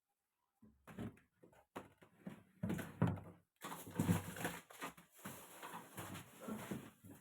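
Irregular knocks, clatter and low thuds of household items being handled, with a steady hiss joining about halfway through.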